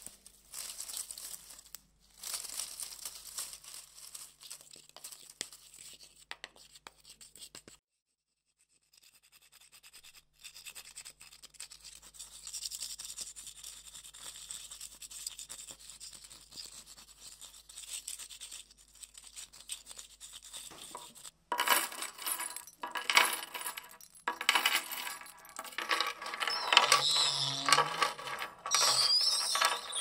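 Faint crackling and rustling, broken by about two seconds of near silence, then from about two-thirds of the way through a louder run of sharp clinks and tinkling clicks, with a few brief chirp-like whistles near the end.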